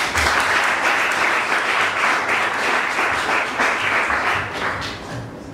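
Audience applauding: a round of clapping that starts suddenly and dies away about five seconds in.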